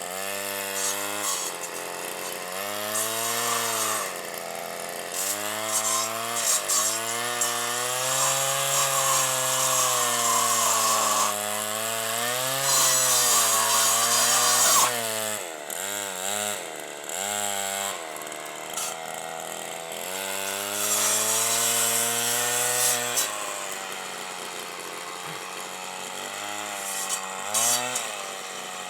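Stihl FS 160 brush cutter's two-stroke engine revving up and down under load as its chainsaw-toothed blade cuts through thorny branches, with a few short drops in engine speed a little past halfway.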